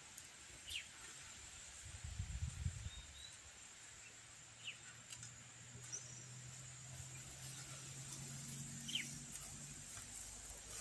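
Faint rural outdoor ambience: a steady high hiss with three short falling chirps, some low rustling about two seconds in, and a low steady hum from about four to ten seconds in.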